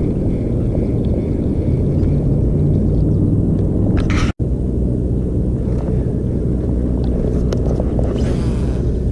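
A steady low rumble, cut off for an instant a little over four seconds in.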